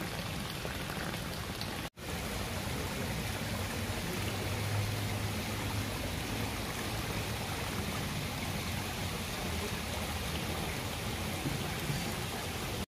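Water from small rock waterfall cascades splashing steadily into a garden pond. The sound cuts out for an instant about two seconds in.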